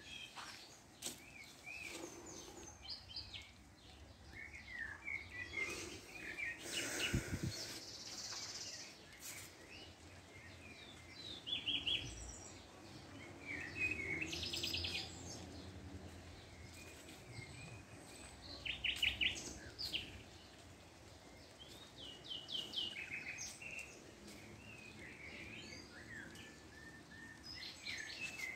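Birds chirping and singing outdoors, many short calls and quick trills from more than one bird, with a brief low rumble about seven seconds in.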